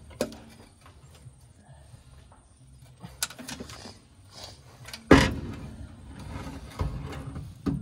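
Injector pump being worked loose from a 1987 Mitsubishi Fuso truck's diesel engine: scattered metal clunks and scrapes, the loudest a heavy knock about five seconds in.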